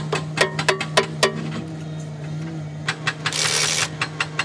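Hand hammer striking the steel wheel hub of a wheel loader in quick ringing blows, about four a second, stopping about a second and a half in, over a steady low engine hum. About three and a half seconds in comes a short hissing burst.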